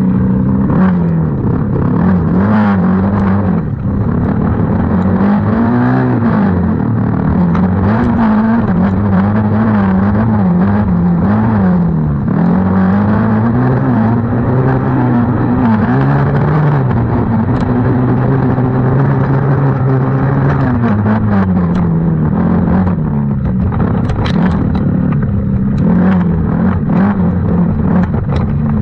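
Small 90cc youth off-road racing engine running hard, its pitch rising and falling constantly as the throttle is worked on and off. There is some sharp clattering near the end.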